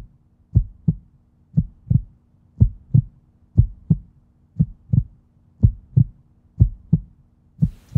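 Heartbeat sound: slow, steady double thumps (lub-dub), about one beat a second, over a faint steady hum.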